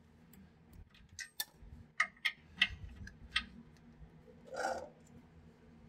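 Ratchet head of a torque wrench clicking in short, irregular runs as it is cranked back and forth on the new U-bolt nuts of a rear leaf-spring axle, tightening them toward 74 ft-lb. A brief scuff follows about four and a half seconds in.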